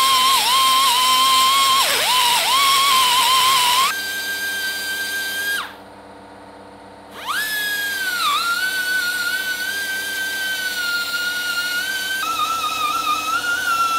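Straight die grinder whining at high speed, its pitch sagging each time the bit bites into the steel bicycle chainring. It stops for about a second and a half partway through, then spins back up with a rising whine.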